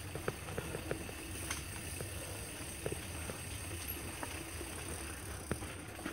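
Mountain bike ridden over a rough dirt trail: a steady low rumble of tyres rolling on dirt, with irregular clicks and knocks as the bike rattles over bumps.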